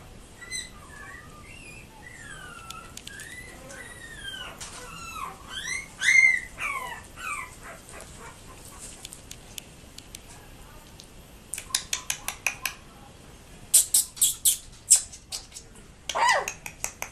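Young yorkiepoo puppies whimpering and squealing in a string of high, rising-and-falling whines as they wrestle. Later comes a quick run of sharp clicks, and near the end one more whine that falls in pitch.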